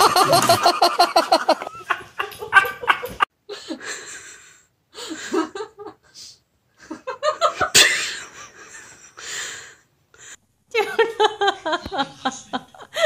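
A person laughing in quick repeated bursts, at the start and again near the end, with shorter scattered bursts of laughter and voice between.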